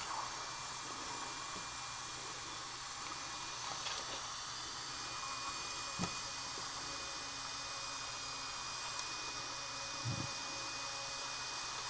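Steady whir and hiss of a small electronics cooling fan, with a thin high whine joining about halfway, and a few faint taps and a soft knock from handling parts on the bench.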